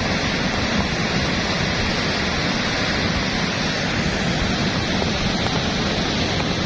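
Volcanic mudflow (lahar) carrying boulders, rushing down a river channel as a steady, loud wash of churning water.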